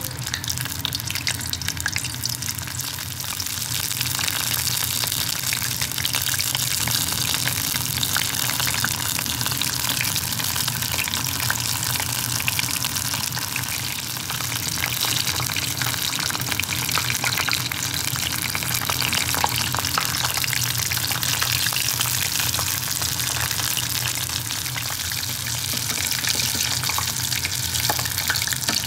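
Battered pieces of chicken of the woods mushroom deep-frying in hot sunflower oil in a steel pot: a steady sizzle full of fine crackles.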